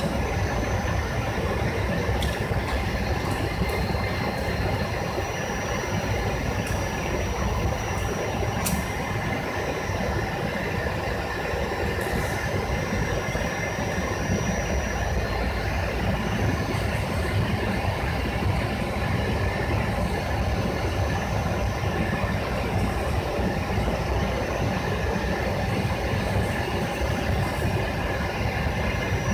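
Airliner cabin noise on descent: the jet engines and rushing air make a steady roar with a faint high whine, heard from inside the passenger cabin. A couple of faint clicks sound over it.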